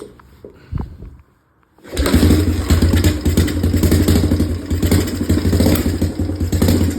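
1980 Yamaha XT250's single-cylinder four-stroke engine starts about two seconds in and runs loud through an almost straight pipe, cold and not yet warmed up.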